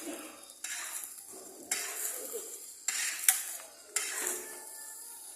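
Fried rice being stirred and tossed in a pan with a spatula: noisy scraping strokes about once a second over a steady high sizzle.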